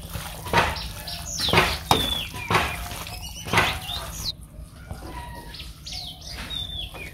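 Hands mixing chicken with ground spices and mustard oil in a bowl, a series of short strokes about once a second that stop about four seconds in, while small birds chirp with short, high, falling whistles.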